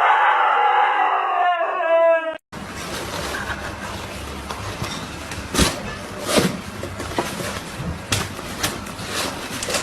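An animal's long call that wavers in pitch, ending about two seconds in. After a sudden cut comes a steady noisy background with a few sharp knocks.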